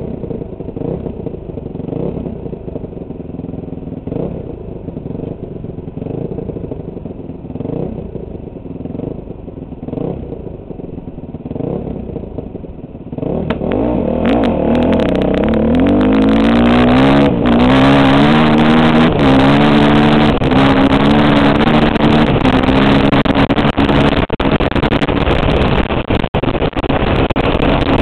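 Four-stroke dirt bike engine heard from the rider's helmet, at first running at low revs. About halfway through it opens up hard and climbs through several gears in quick rising sweeps, then holds at speed with wind rushing over the helmet.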